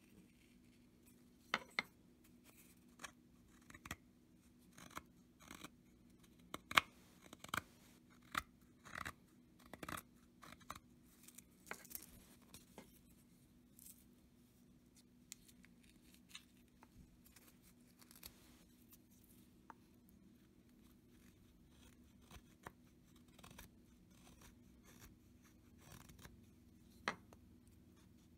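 Small hand-made carving knife whittling a stick of wood: irregular short, crisp cuts and scrapes as shavings come off, coming thick and fast in the first half and sparser later, with one sharper cut near the end.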